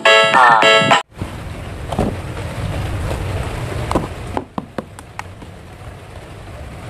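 About a second of upbeat electronic music that cuts off abruptly, followed by an outdoor low rumble and hiss with a few sharp clicks from handling a boxed plastic action figure.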